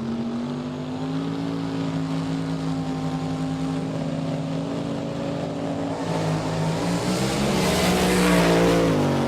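Sports car engine running at steady revs, growing louder as it closes in. It is loudest about eight seconds in, then drops in pitch as it passes by.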